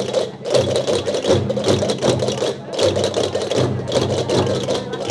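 Traditional Gomeran procession music: many large rope-tensioned tambores beaten with sticks together with the rapid wooden clatter of chácaras (large castanets), played continuously in phrases with short breaks.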